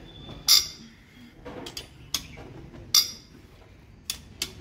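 Sharp metallic clicks from a long socket wrench tightening the cylinder head bolts of a diesel engine. There are about six clicks at uneven spacing, the loudest about half a second in and another about three seconds in.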